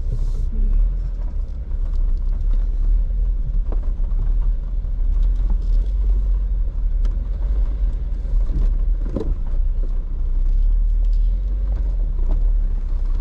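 Jeep's engine and drivetrain giving a steady low rumble as it crawls slowly over a rocky trail, with a few faint knocks about four, seven and nine seconds in.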